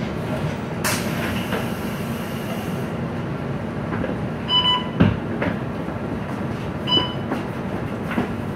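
Diesel engine of a MAN NL323F Lion's City bus idling with a steady hum while stopped. About a second in the front door opens with a click and a hiss of air, and later the fare card reader gives two short beeps as boarding passengers tap their cards, with a thump in between.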